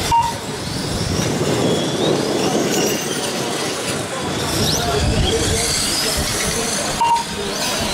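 Brushless electric motors of 1/8-scale on-road RC race cars whining, with overlapping high pitches rising and falling as the cars accelerate and brake around the track. Two short beeps, just after the start and about seven seconds in.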